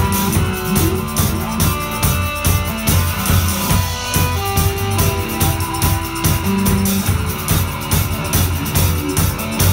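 Live rock band playing an instrumental passage: electric guitar over a drum kit keeping a steady beat, with no vocals.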